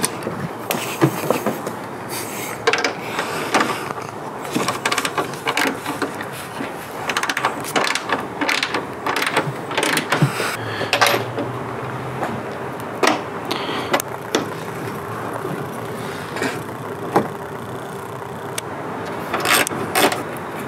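Irregular metallic clicks and clanks of a hand wrench turning a bolt, tightening a bull-horn mount onto a car's hood edge.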